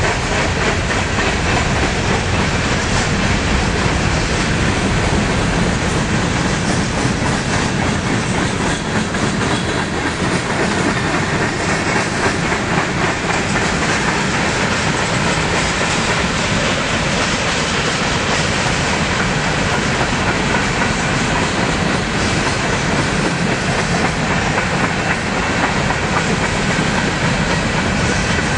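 Loaded freight cars of a long CN freight train rolling past: a steady, loud noise of steel wheels on the rails, with fine clicking and clattering as the wheels cross the rail joints.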